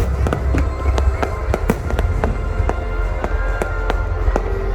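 Fireworks display: rapid, irregular pops and cracks of bursting shells over a steady low rumble.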